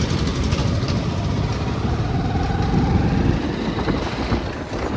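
Hero Splendor motorcycle's single-cylinder four-stroke engine running steadily while the bike is ridden, mixed with a heavy, irregular wind rumble on the microphone.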